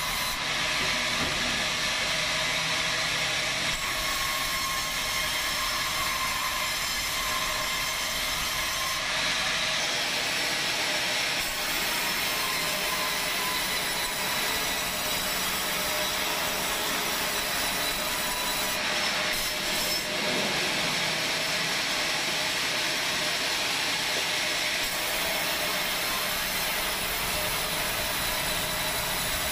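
Large sawmill band saw running and sawing through timber: a steady, loud mechanical noise with a high whine over it.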